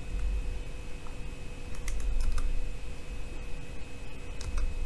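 Typing on a computer keyboard: scattered key clicks, some in quick little runs, over a faint steady hum.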